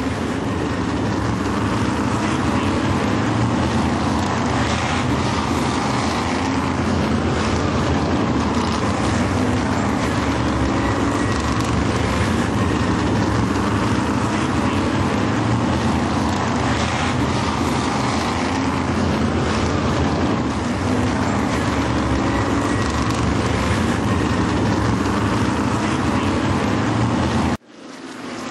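A loud, steady mechanical drone with a low engine-like hum, cutting out suddenly near the end and fading back in.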